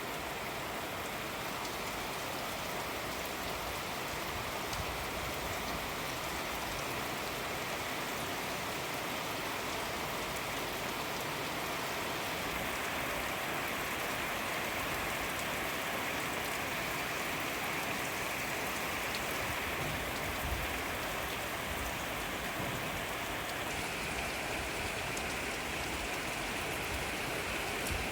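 Steady rain falling, with a constant hiss and the fine patter of individual drops.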